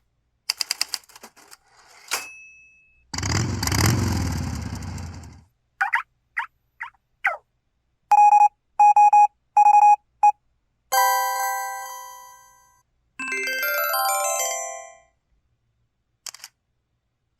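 A series of LG LU6000 Cyon Secret phone system sound effects from its Yamaha YMU792 64-voice sound chip, played one after another with silence between them. In order: a few clicks, a noisy whoosh, four short falling chirps, six quick even beeps, a chord that fades out, a quick run of notes and a last short blip.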